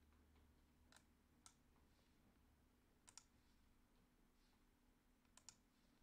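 Near silence broken by a few faint computer mouse clicks, some in quick pairs.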